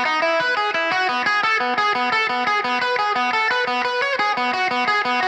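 Background music: an electric guitar picking a fast, evenly repeating pattern of notes.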